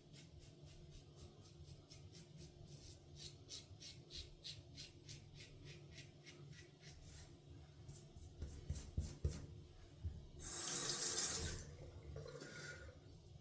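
Quick, even scratchy strokes of shaving brush and lather work, about four to five a second, for the first seven seconds or so. About ten seconds in, a loud hiss of water lasting about a second.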